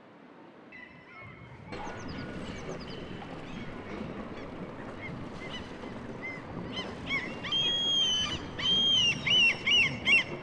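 Gulls calling: high, harsh cries that grow louder toward the end, ending in a quick run of repeated calls over a steady rushing background.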